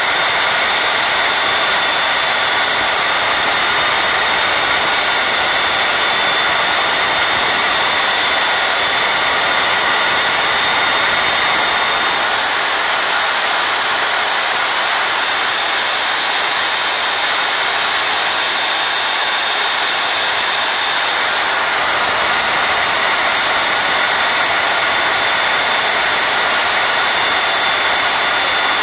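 Angle grinder fitted with a sandpaper disc running steadily, a continuous whine over hiss, while the filled end of a plastic axe handle is sanded against it. It dips slightly in level for about ten seconds in the middle.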